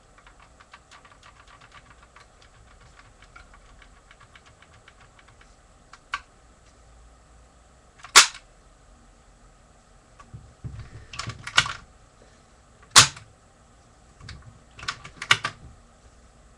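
Lego brick shooter being worked and fired: a long run of rapid light plastic clicks, then two sharp loud snaps a few seconds apart, with clusters of plastic clacks between and after them.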